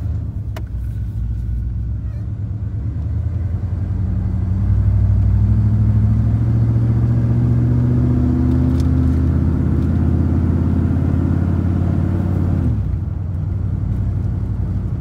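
A 1996 Ford F-350's 7.5-litre (460) big-block V8, heard from inside the cab as the truck pulls away and gathers speed. The engine note grows louder and rises in pitch from about four seconds in, then drops suddenly near the end.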